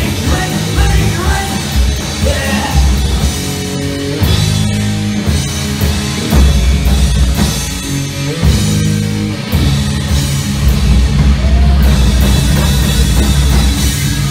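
A punk rock trio playing live and loud: distorted electric guitar, electric bass and drum kit.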